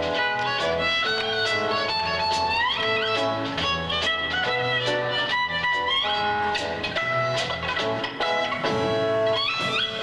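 Solo violin playing a swung jazz melody, sliding up into notes several times, over a plucked double bass and guitar rhythm accompaniment.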